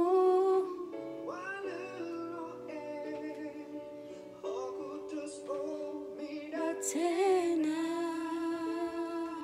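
Music: a singing voice holding long, slow notes over a plucked-string accompaniment.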